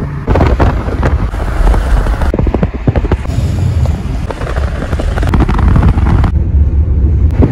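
Wind buffeting the phone's microphone through the open side window of a moving car, a loud, gusty rumble over the car's road noise.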